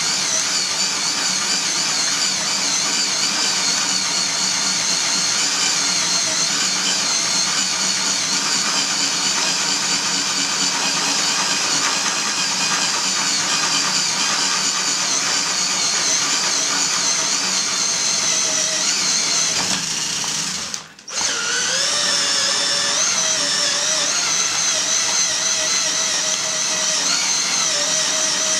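Electric drill turning a metal meat grinder that is grinding cocoa nibs and sugar into chocolate paste: a steady motor whine that cuts out for a moment about three quarters of the way through, then starts again.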